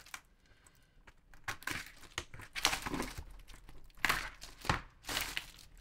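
Clear plastic packaging crinkling and rustling as hands handle a bag of printer ink bottles. The rustling is uneven, starts about a second and a half in, and is loudest around four and five seconds in.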